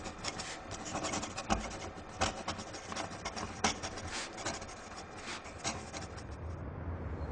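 Pen scratching on paper in quick, irregular strokes, as in handwriting. The strokes stop shortly before the end.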